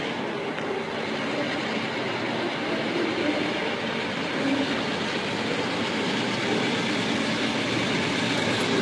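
Approaching train: a steady rail and engine noise that grows slightly louder.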